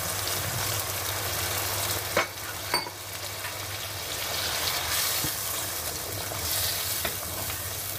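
Palak paneer gravy sizzling and bubbling in a hot pan as water is poured into it, with two sharp clicks a little after two seconds in.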